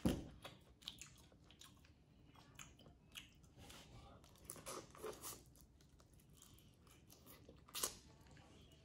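Quiet eating sounds: a boiled crawfish's shell cracked and peeled by hand, then the tail meat chewed, as small scattered clicks and soft crunches, with one sharper click near the end.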